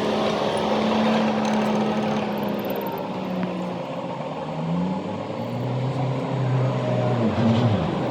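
Vehicle engine running, its pitch shifting up and down, with a quick rise and fall near the end.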